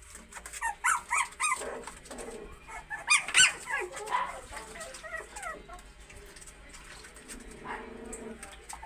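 Young puppies whimpering and yelping in short high-pitched squeals, several in quick succession, the loudest about three and a half seconds in: the cries of litter-mates play-fighting.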